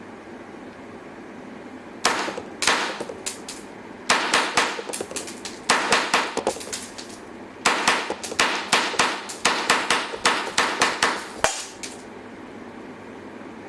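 Tanaka SIG P226 model gun firing 7 mm cap-loaded cartridges in rapid strings of sharp cracks, about three a second, starting about two seconds in and stopping about two seconds before the end, with two short pauses between strings.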